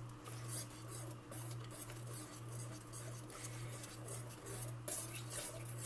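Whisk stirring cake batter in a bowl: soft, irregular scraping with light taps against the bowl, over a steady low hum.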